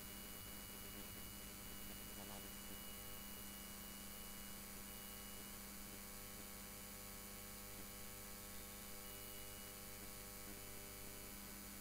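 Steady low electrical hum with a faint hiss, under a thin high tone that comes and goes.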